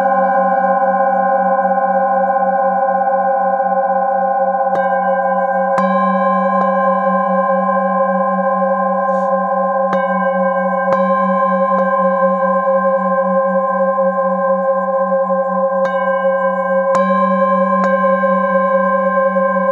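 Metal singing bowls ringing together in sustained, overlapping tones, the lowest with a steady wobble. A padded mallet strikes a bowl again in gentle groups of three, about every five seconds.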